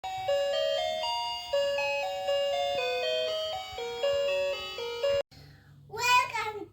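Intro jingle: a simple melody of single held notes stepping up and down, stopping about five seconds in. Near the end a child starts singing.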